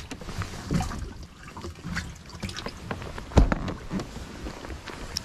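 Water sloshing and dripping in an open boat livewell, with scattered small knocks against the boat and one heavier thump about three and a half seconds in.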